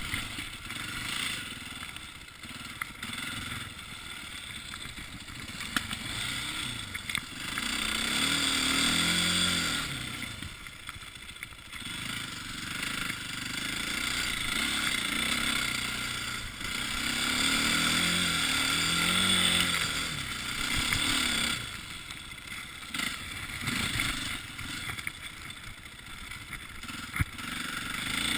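KTM 450 single-cylinder four-stroke dirt bike engine under way, revving up and easing off several times as the throttle is opened and closed.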